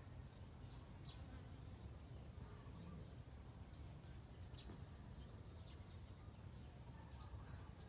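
Faint outdoor background: a steady low rumble with scattered short bird chirps and a thin, high insect drone that fades out about four seconds in.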